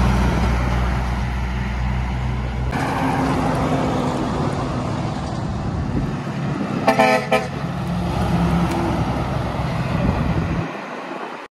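Heavy trucks driving past with steady engine and tyre noise. About seven seconds in, a vehicle horn gives two short toots. The sound cuts off abruptly just before the end.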